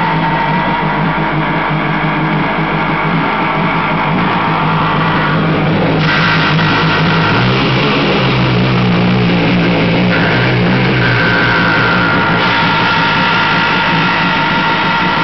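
Kawasaki JS550 jet ski's two-stroke twin engine running, with a steady ringing ping over the engine note and a low rumble underneath; the engine note shifts about halfway through. The owner suspects the ping from the carburetor or cylinder head area could be pre-ignition, and the rumble from the rear worn pump housing bearings.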